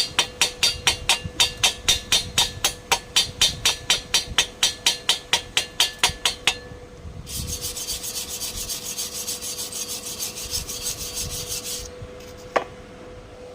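Rhythmic hand scraping, about four to five strokes a second, as of a brush or file worked back and forth. It stops about six and a half seconds in, and a steady hiss follows for about four and a half seconds. A single sharp click comes near the end.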